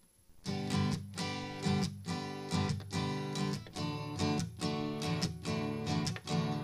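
Background music: a strummed acoustic guitar starts about half a second in and plays chords on a steady beat.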